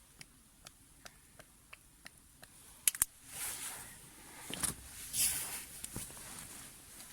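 Small ticks about two or three a second, a sharp double click a little before the middle, then several short rustling swishes, the sound of things being handled.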